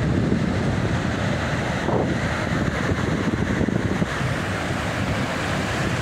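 Ocean surf breaking and foam washing through shallow water, with wind buffeting the microphone.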